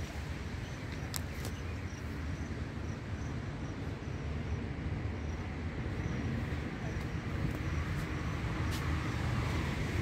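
Steady outdoor background noise with a strong low rumble. A faint high chirp repeats about twice a second, and a few sharp clicks come through, one about a second in and another near the end.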